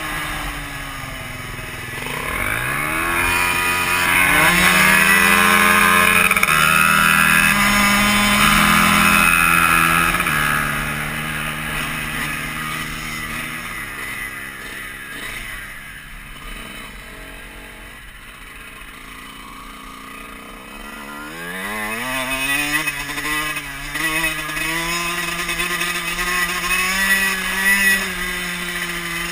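Dirt bike engine under hard acceleration, its pitch climbing and then stepping as it shifts gear. It eases off and falls quieter for several seconds in the middle, then revs up again and holds a steady run near the end.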